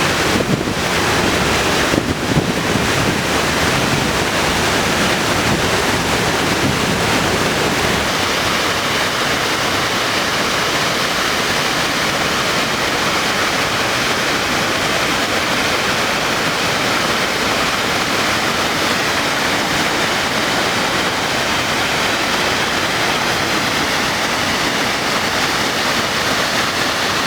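Waterfall rushing: a steady roar of falling water, with a couple of brief knocks in the first two seconds.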